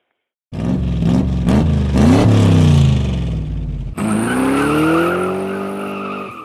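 Car engine revving hard in two edited clips. In the first, the pitch climbs and drops several times; a sudden cut about four seconds in leads to the second, where the pitch climbs steadily and then levels off.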